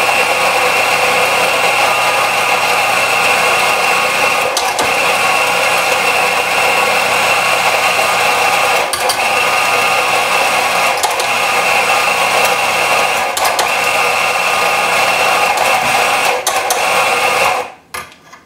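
Anfim Haus electric coffee grinder running steadily as it grinds espresso beans into a portafilter, with a few brief clicks along the way. The motor cuts off near the end.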